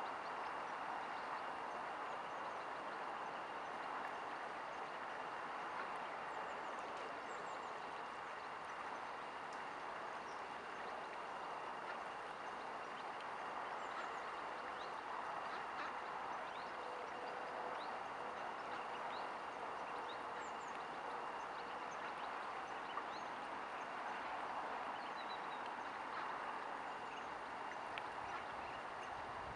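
Steady outdoor background hiss with a faint constant high whine, and scattered faint, short high chirps of small birds.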